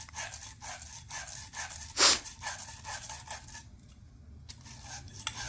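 Copper pipe being scrubbed with an abrasive to clean it before soldering: a run of short rasping rubs, a few a second, with one louder stroke about two seconds in and a brief pause near the end.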